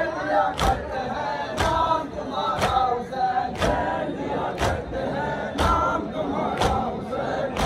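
A large crowd of men performing matam: they chant a mourning lament in unison while striking their chests together, one sharp slap about once a second.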